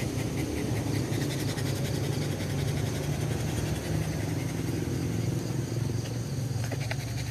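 A dog panting, over a steady low rumble.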